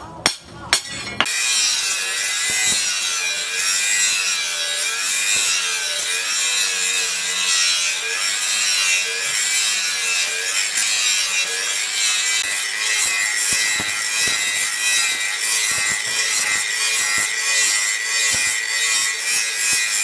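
Three hammer blows on the steel billhook blade, then a handheld angle grinder grinding the edge of the leaf-spring steel blade: a steady, rasping grind over the motor's constant high whine.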